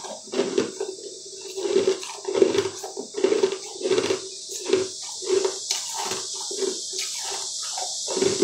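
Close-miked mouth chewing of a crunchy, crystal-coated ball of food, in a steady rhythm of about three chews every two seconds, over a steady hiss.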